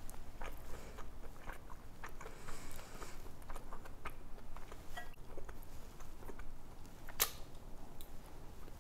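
A person chewing a mouthful of salad with the mouth closed, with soft wet mouth clicks throughout and one sharper click about seven seconds in.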